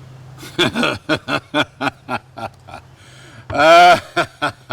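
A man laughing in a rapid series of short chuckles, with one louder, longer exclamation about three and a half seconds in.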